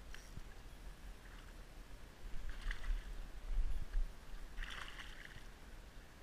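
Two brief splashes at the water's surface, about two seconds apart, the second a little longer, with low bumps on the microphone between them.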